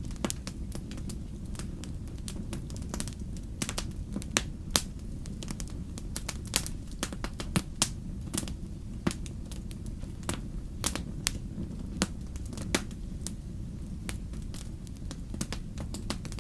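Wood fire crackling: irregular sharp pops and snaps over a steady low rumble of burning, with a few louder pops in the first half.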